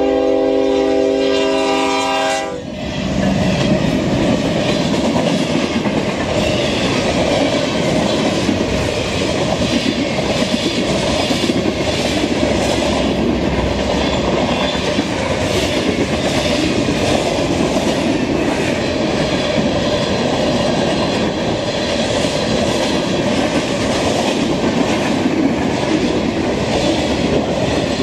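Norfolk Southern freight locomotive's air horn sounding a chord that cuts off about two and a half seconds in, then the freight cars rolling past with steel wheels clacking over the rail joints.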